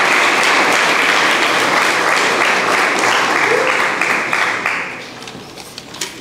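Audience applauding in a hall, the applause dying away about five seconds in. A few light clicks follow near the end.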